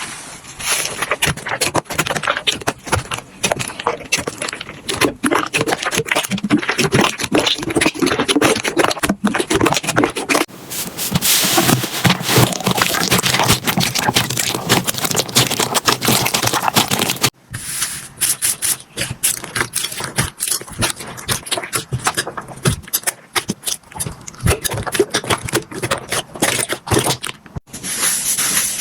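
Slime being squished, pressed and poked by hand, giving dense crackling clicks and squelchy pops. The sound changes abruptly about ten, seventeen and twenty-eight seconds in as the clips change.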